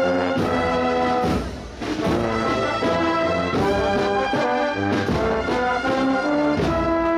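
Brass band with drums playing an Andalusian Holy Week processional march: trombones and trumpets holding chords over a steady drum beat.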